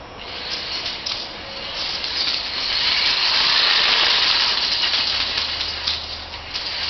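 Electric drill spinning a homemade CPVC pipe plumbing snake with a spade bit on its tip, giving a hissing, rattling noise that swells over the first few seconds, with a low steady hum joining about halfway through.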